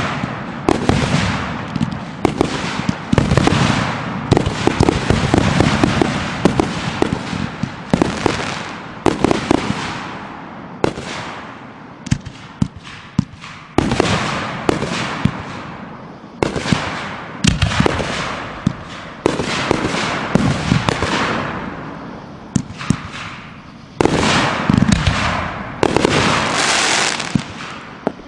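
Aerial fireworks bursting overhead in quick succession. There are sharp bangs about every one to two seconds, sometimes in clusters, and each one fades out over a second or so.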